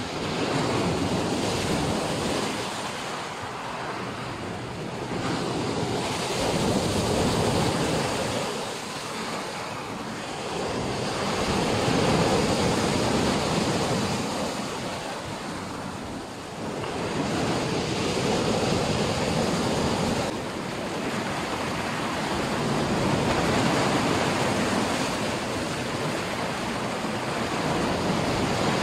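Black Sea waves breaking and washing on the shore, a loud rushing that swells and falls back about every five to six seconds.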